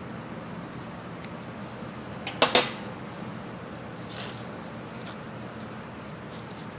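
Hand tools handling at a motorcycle engine: a sharp metallic clack about two and a half seconds in, a brief scrape a little later and a few faint clicks, over a steady low hum.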